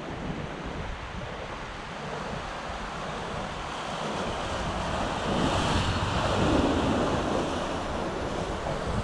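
Ocean surf washing and breaking over shoreline rocks, swelling loudest a little past halfway as a wave comes in, with wind rumbling on the microphone.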